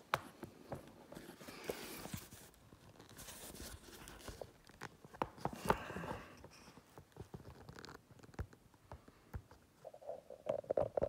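Handling noise of a camera being moved and set in place: faint scattered clicks, knocks and rustles, with a quick cluster of short bursts near the end.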